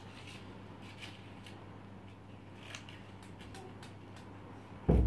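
Scissors snipping through paper in a few faint, irregular cuts. A dull thump comes just before the end.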